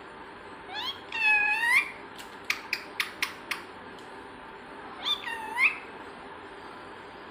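Two meow-like calls, the first about a second in and a shorter one about five seconds in, each dipping and then rising in pitch, with a quick run of five or six sharp clicks between them.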